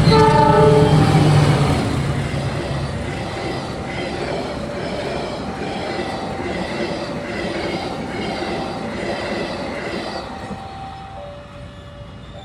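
Railway level-crossing alarm sounding a repeating two-tone warning as a train passes. The train's horn and rumble are loudest at the start and fade over the first two seconds, leaving the alarm, which grows quieter near the end.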